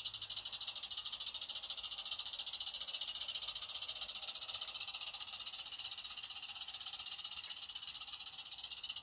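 Roundhouse Bundy live steam garden locomotive, fitted with a Lady Anne slow-running valve, running slowly: its exhaust gives a rapid, even, hissing chuff that holds steady throughout.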